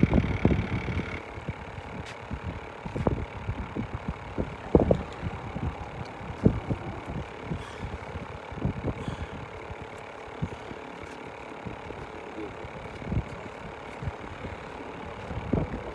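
Car running on the road, heard from inside, with irregular low thumps over a steady hum.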